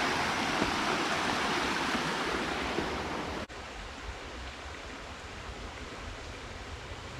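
Rushing river water, loud and steady, then cut off about three and a half seconds in, leaving a quieter, duller hush of moving water.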